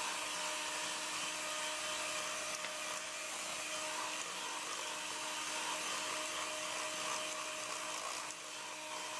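Electric hand mixer running steadily, its beaters whirring through cream cheese and egg batter in a stainless steel bowl, with an even motor hum.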